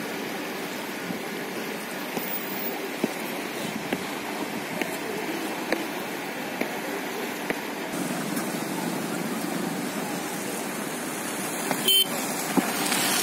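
Steady rushing of a swollen river in flood, fast muddy water flowing past a causeway, with a brief thump near the end.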